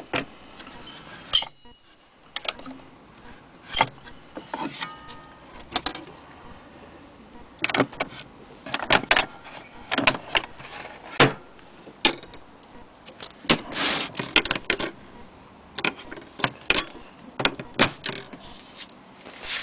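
Handling noises from a wooden HMV Model 103 cabinet gramophone: scattered sharp clicks, knocks and short rattles as its metal tone arm and the cabinet's small doors are moved by hand.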